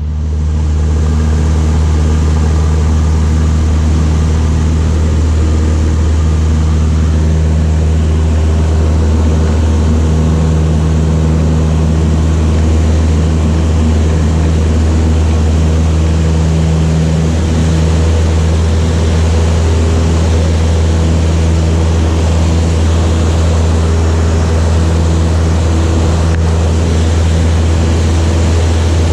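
Light aircraft's piston engine and propeller running at a steady low drone. The drone fades in over the first second.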